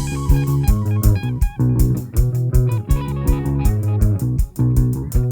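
Background music: electric guitar and bass guitar over a steady drum beat.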